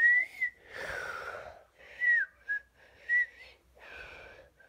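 A person whistling a few short notes, the first gliding slightly upward and one falling away at its end, with breathy puffs of air between the notes.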